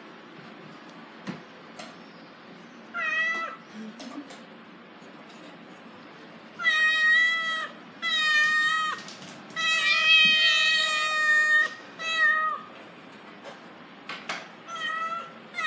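Small black domestic cat meowing over and over: one meow about three seconds in, then a string of long, drawn-out meows in quick succession, and a few shorter ones near the end.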